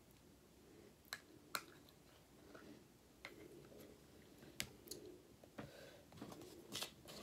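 A handful of faint, sharp clicks and taps from a metal spoon working cheese sauce out of a plastic bag onto a plate of tortilla chips.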